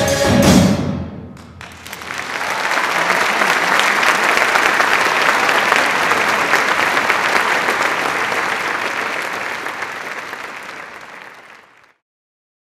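A men's choir and percussion end on a loud final chord that cuts off within the first second. Audience applause then builds, holds steady and fades out near the end.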